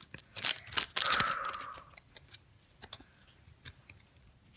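Foil wrapper of a Pokémon card booster pack crinkling and tearing open for about the first two seconds, then faint rustles and clicks as the cards inside are handled.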